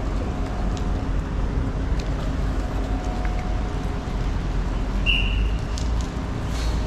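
Steady low rumble of a car ferry under way, with a brief high squeak about five seconds in.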